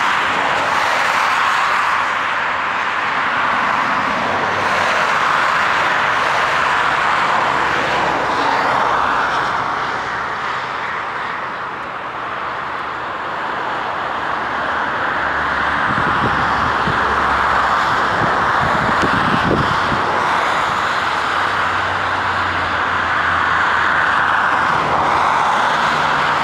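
Steady jet engine noise from an Airbus A380's four engines as the airliner rolls out along the runway after touchdown. It eases off slightly about halfway through, then grows again.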